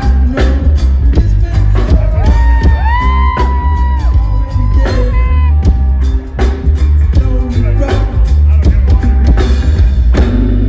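Live reggae band playing: heavy deep bass and drum kit, with a sliding, held lead melody line about two to five seconds in.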